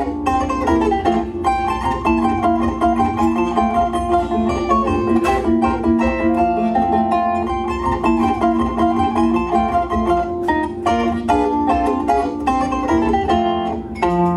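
Zither played solo: a plucked melody over a steady, repeating accompaniment of lower chord notes.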